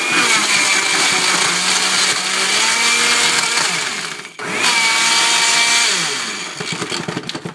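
Countertop blender running at high speed, blending a drink. It cuts out for a moment a little over four seconds in and starts again, its motor pitch shifting as it runs.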